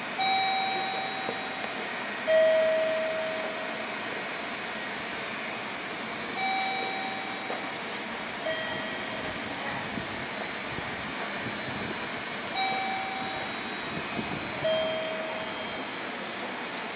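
Two-note chime, a higher ding then a lower dong about two seconds apart, repeating about every six seconds. Under it is the steady mechanical hiss of the electric train standing at the platform.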